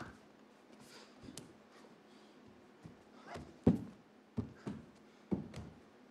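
A dancer's feet and body thudding on a stage floor: a sharp knock at the start, then a run of landings and stamps, the loudest about three and a half seconds in, over a faint steady hum.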